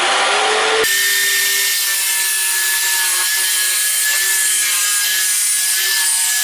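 Bosch 1587 AVS variable-speed jigsaw, mounted upside down under a table as a scroll saw, running with a steady motor whine while its blade saws through 3/4-inch maple plywood. The whine rises in pitch as the saw comes up to speed in the first second.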